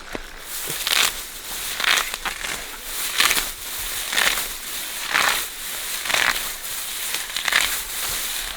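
Dry vegetation crunching and rustling in regular strokes, about one a second.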